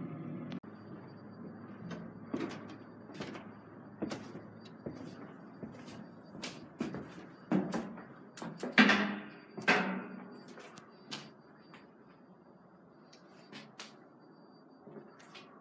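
Irregular knocks, clicks and clunks, with a louder rattling scrape that falls in pitch a little past halfway.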